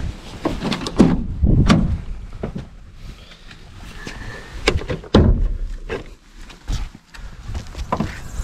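Vauxhall Corsa SRi door being opened by its outside handle: a series of clicks and clunks from the handle and latch as it releases and the door swings open, over a steady low rumble.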